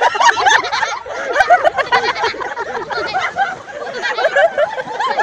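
A group of young men laughing and shouting over one another, several voices at once.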